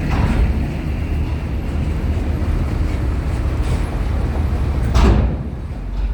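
Heavy vehicles, trucks and buses, rumbling steadily as they are driven on or off a roll-on/roll-off ferry, with a short loud burst of noise about five seconds in.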